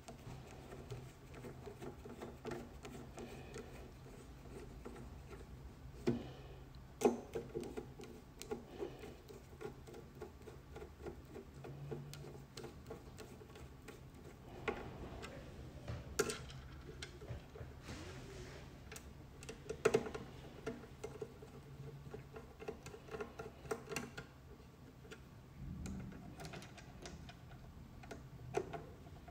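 A hand screwdriver driving screws through rubber corner bumpers into a metal receiver case: faint scattered clicks and scrapes, with a few sharper knocks.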